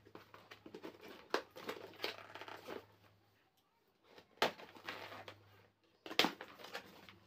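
Scissors cutting the tape on a cardboard box, then the box's flaps being pulled and torn open, with irregular crinkling and tearing of cardboard and a few sharp clicks.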